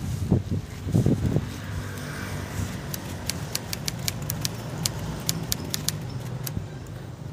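An engine running steadily with a low hum, under a few low bumps at the start and a quick run of sharp clicks in the middle.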